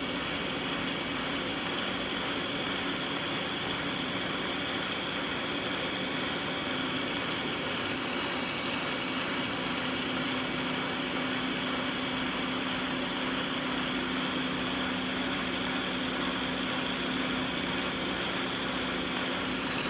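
Welding equipment running: a steady, even hiss with a low hum under it, unchanging throughout.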